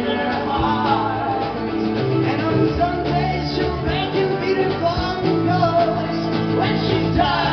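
Live band music: mandolin, acoustic guitar, electric bass and drums playing a folk-rock song, with sung vocals.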